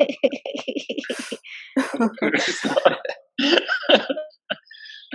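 A cough and breathy laughter from people on a video call, mixed with indistinct voices, heard through the call's audio.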